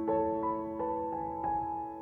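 Slow, soft piano music: single notes struck a few times a second and left ringing.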